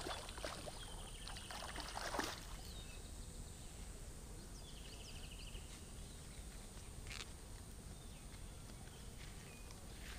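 Small birds chirping, with two short rapid trills held at one pitch. About two seconds in, a brief cluster of sharp knocks, and a faint steady high whine stops at the same moment.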